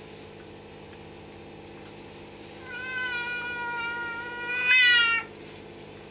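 Wet Norwegian Forest cat meowing in distress at being bathed: one long drawn-out meow starting a few seconds in, rising and loudest near its end.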